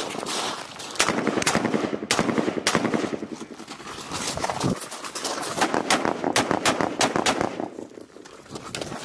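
Running footsteps crunching on gravel: a quick, uneven series of sharp crunches.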